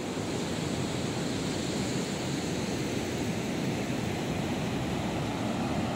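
Ocean surf breaking on the beach, a steady rush of loud waves.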